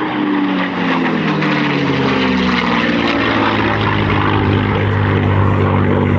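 P-51D Mustang's Packard-built Merlin V-12 engine and propeller as the fighter flies past: the engine note drops in pitch over the first two seconds, then holds a steady low drone.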